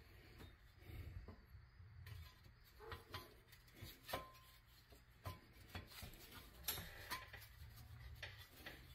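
Faint scrapes and clicks of a rusty pressed-steel toy truck cab being handled and set onto its chassis, with several sharper metal clicks, one of them ringing briefly about four seconds in.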